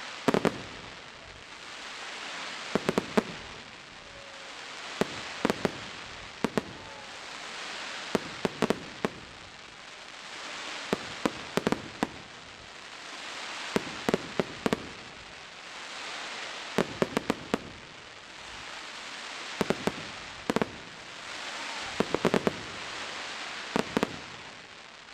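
Fireworks display: sharp bangs of bursting shells come in quick clusters of two to five, every two to three seconds, over a steady hiss that swells and fades between them.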